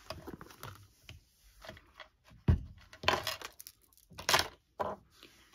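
A few separate taps and clatters of small hard objects being handled and set down on a work table, with a dull thump about two and a half seconds in.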